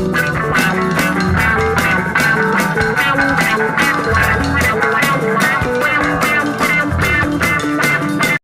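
Background rock music with electric guitar and a steady drum beat, cutting off suddenly at the end.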